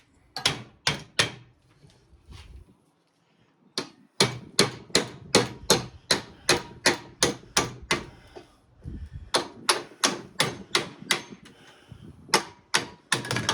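Repeated hammer blows on the saw's electric motor, knocking it apart to free the armature. Three quick strikes come first, then after a pause a steady run of about two blows a second, broken briefly once.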